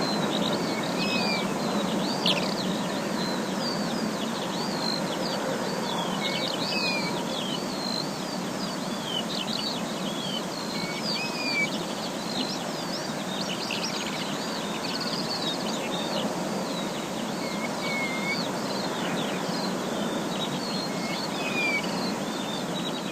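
Forest ambience: many small birds chirping and calling in short, quick notes over a steady rushing background noise.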